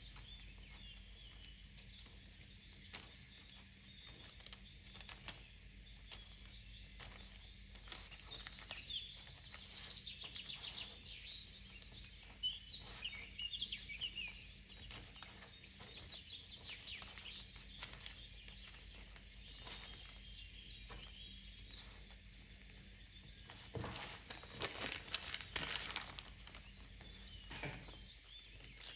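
Faint clicks and light scrapes of a metal spoon and soft dough being handled while empanadillas are filled, over a steady low hum, with a denser run of handling sounds near the end.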